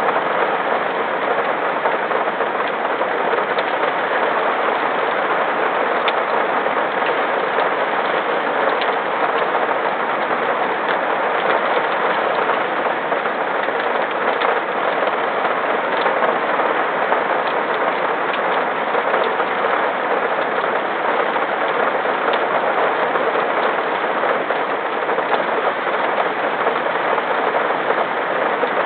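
Steady rain, an even hiss with scattered small ticks of drops striking a surface.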